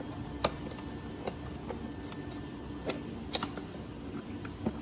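Scattered light clicks and taps, a few seconds apart, of the motorcycle's passenger seat being handled and lined up on the tail bodywork, over a steady faint room hum.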